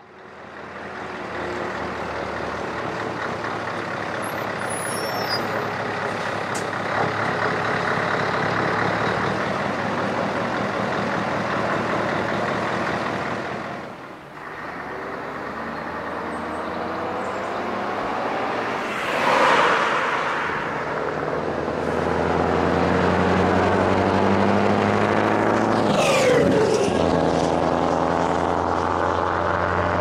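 Scania 164L 480 V8 diesel truck with an open exhaust pipe running under load, pulling away and then driving past, its engine note growing louder in the second half as it closes in. Two short hissing sweeps cut through the engine sound in the second half.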